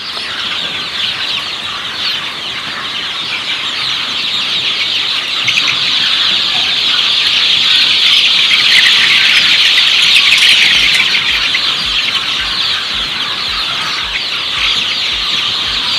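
A large flock of chickens in a poultry house clucking and chirping all at once, a dense unbroken chatter, loudest about halfway through.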